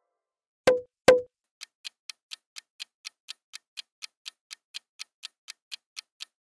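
Two sharp knocks with a short ring, then the ticking of a quiz countdown timer sound effect at a steady four or so ticks a second while the answer time runs down.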